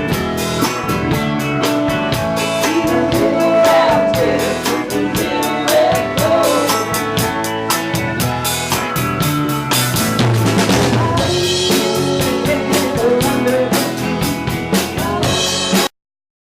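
Live rock band playing, with a drum kit keeping a steady beat under pitched instruments; the music cuts off abruptly near the end.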